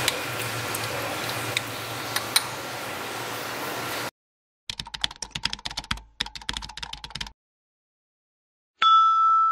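A steady hiss with a few light clicks, then after a short silence a quick run of computer-keyboard typing clicks lasting a couple of seconds. After another pause comes a single bright bell-like ding that rings on.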